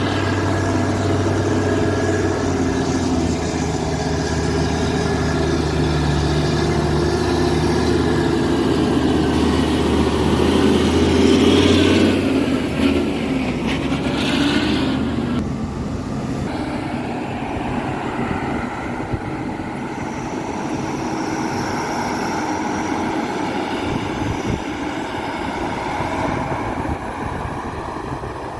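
Caterpillar 320D excavator's diesel engine working, swelling to its loudest about twelve seconds in, then easing off and running lower from about sixteen seconds in.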